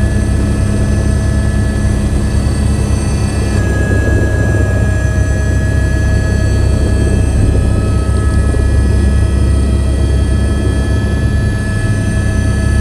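Helicopter in flight, heard from inside the cabin: a loud, steady low drone of rotor and engine, with several steady high whine tones above it that shift slightly about four seconds in.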